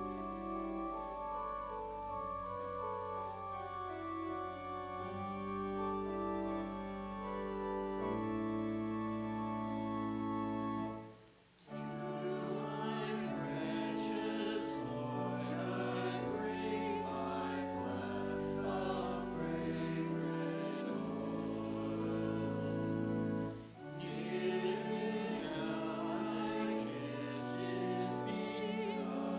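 Church organ playing slow held chords for offertory music, then after a brief break about a third of the way in, voices singing a hymn with the organ, with another short pause near the end.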